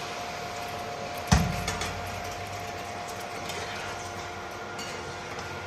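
One sharp knock of metal cookware about a second in, a vessel striking the frying pan, over a steady low hiss.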